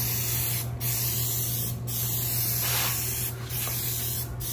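Aerosol can of Plasti Dip rubber coating hissing as it is sprayed in passes, cutting out briefly four times between strokes.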